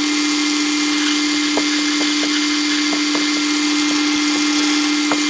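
Metal lathe turning a brass piston while a parting tool cuts a groove in it, the audio sped up tenfold: a steady high hum over hiss, with scattered short ticks.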